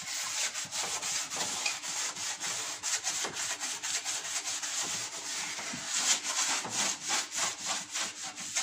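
Scouring pad scrubbing an enamel stovetop in quick back-and-forth strokes, several a second, a rasping rub that scours off cooking and turmeric stains.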